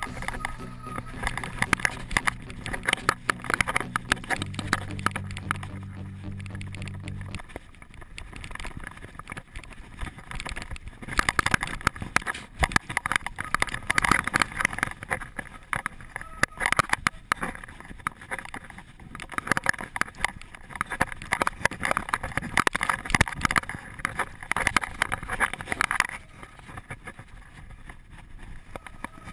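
Mountain bike descending a rough dirt trail: wind buffeting the on-bike camera's microphone, with the frame and components rattling and knocking over ruts and roots. A low steady hum runs under it for the first seven seconds or so, then stops.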